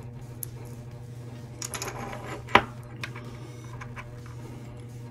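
Small plastic and silicone parts of a taken-apart Fume Infinity disposable vape handled between the fingers: light scratching and rustling, and one sharp click about halfway through. A steady low hum runs underneath.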